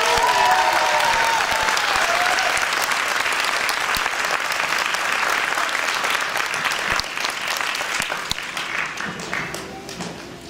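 Audience applauding at the end of a song, with a voice cheering briefly at the start. The clapping dies down near the end.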